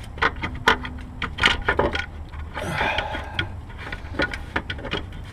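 Irregular metallic clicks and knocks of hand tools and parts being handled in a car's engine bay while work on the alternator mounting goes on, with a short scrape about three seconds in.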